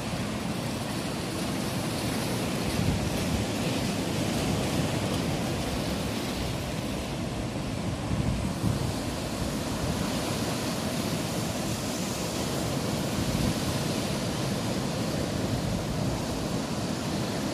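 Steady rushing noise of ocean surf and wind, with wind fluttering on the phone's microphone.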